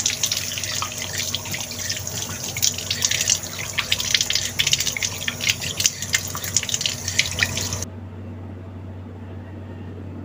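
Tap water running into a sink and splashing as hands cup it and splash it onto the face. The water sound stops abruptly near the end.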